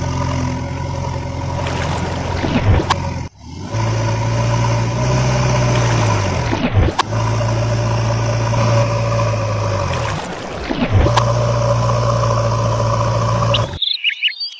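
Vehicle engine running at a steady pitch. It cuts out briefly about three seconds in, and its pitch dips and recovers twice, near seven and eleven seconds.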